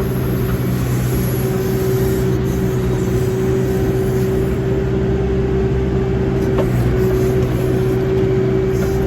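Backhoe's diesel engine running steadily, with a constant higher hum over the low drone.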